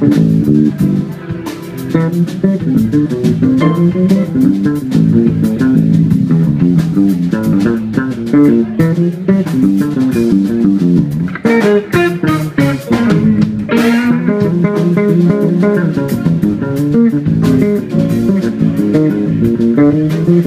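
Electric bass guitar solo in a funk tune, played live, with quick runs of notes in the low range and a drum kit keeping time behind it.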